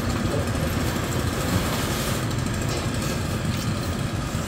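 Steady street traffic noise with small engines running.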